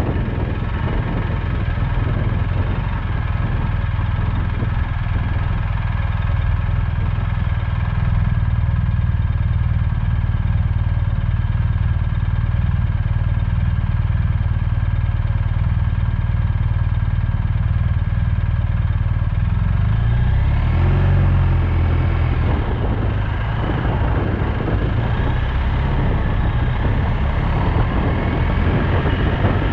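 Motorcycle engine running at a steady cruising pace, with wind and road noise. About twenty seconds in, the engine note shifts briefly as the revs change, then settles again.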